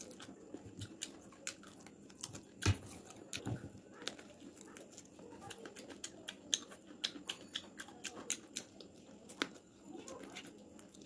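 Close-up eating sounds of a person eating chicken drumstick and rice by hand: irregular chewing and mouth clicks throughout, with one louder knock about three seconds in.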